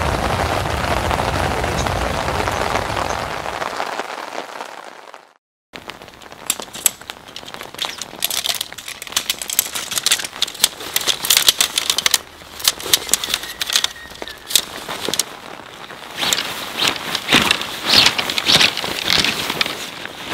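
Heavy, steady rain for the first few seconds, fading out to a brief silence. After that comes a dense, irregular crackling of sharp ticks and taps that rises and falls in bursts.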